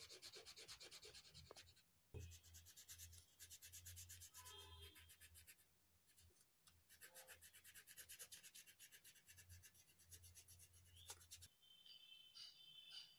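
Crayon rubbing on drawing paper in quick, even back-and-forth colouring strokes, faint, stopping briefly twice. Near the end the rubbing stops and faint high tones are heard.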